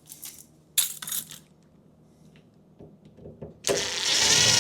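Small metal screws clinking as they are handled, then near the end a cordless power driver starts and runs steadily as a screw is driven back into the refrigerator.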